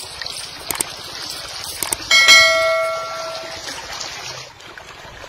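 Two short clicks, then a bright bell ding that rings out and fades over about a second and a half, the sound effect of a subscribe-button and notification-bell animation, over a steady hiss of water.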